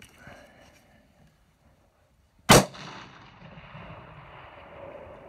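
A single rifle shot about two and a half seconds in, its echo trailing off over the next couple of seconds.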